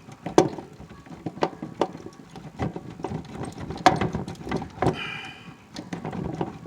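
Irregular plastic clicks and knocks as a wire connector on a furnace control board is worked loose by hand, with a brief squeak about five seconds in.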